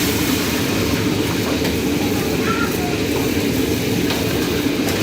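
Steady, low rumbling background noise with no distinct events.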